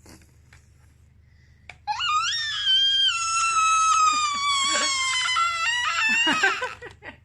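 Baby letting out one long, high-pitched screech starting about two seconds in, slowly falling in pitch and lasting about five seconds.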